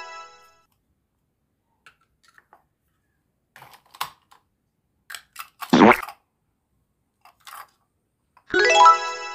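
Plastic toy ice cream scoops and cones clicking and tapping as they are handled, with one louder plastic knock a little past halfway. A bright chime fades out at the start and rings again near the end.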